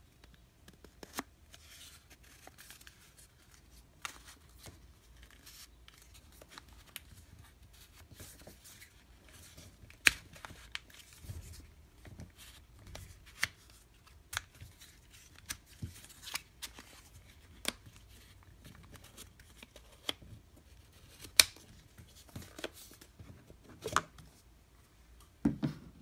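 Wooden puzzle box being handled: its panels are slid and shifted against each other with faint scraping and irregular sharp wooden clicks and knocks as the hidden peg is worked through the maze. The loudest knocks come about ten seconds in and about two-thirds of the way through, with a quick cluster near the end as the box comes open.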